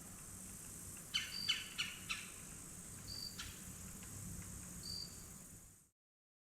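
Steady high insect hiss with a few short, high chirps and a quick run of clicky chirping notes about a second in. The sound cuts off abruptly near the end.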